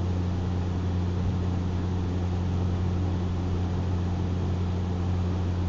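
Steady low electrical-sounding hum with an even background hiss, unchanging throughout.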